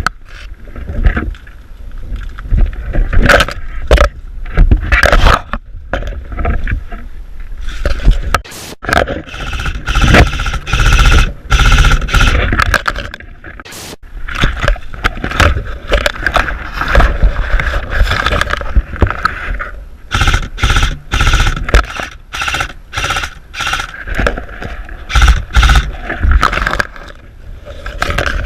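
Loud, irregular scraping and rustling right against the microphone, with low thuds all through: the mic rubbing against gear or clothing while the player moves.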